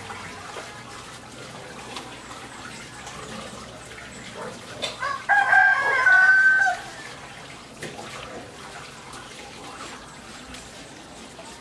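A rooster crowing once, about five seconds in: a single drawn-out call that rises and then holds, over a faint steady hiss.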